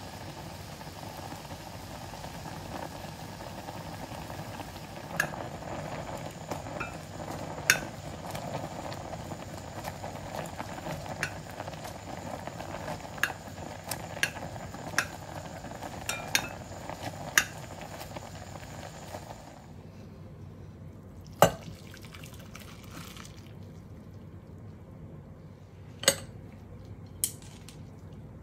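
Food sizzling in a hot pan, a steady hiss with metal utensils clinking against the cookware now and then. The hiss cuts off suddenly about two-thirds of the way through, and a few sharper clinks follow.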